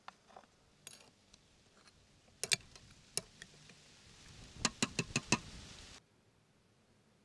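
Metal spoon clinking and scraping against a small glass bowl as mustard is scooped out and knocked into a mixing beaker: scattered light clicks, then a quick run of four or five taps, cut off suddenly near the end.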